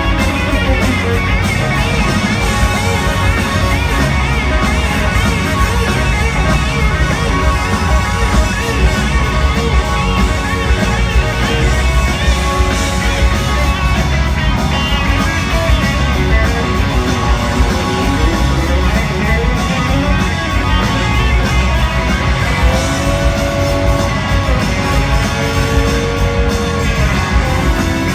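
Live rock band playing loud, with a lead electric guitar from a Gibson Firebird soloing over the drums and bass, heard as a concert recording in a large arena.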